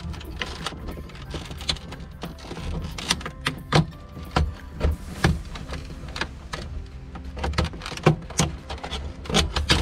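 Irregular sharp plastic clicks and knocks as the overhead console housing of a 2011 Porsche Panamera 4S is pried and wiggled loose from the roof with a screwdriver, over a low steady rumble.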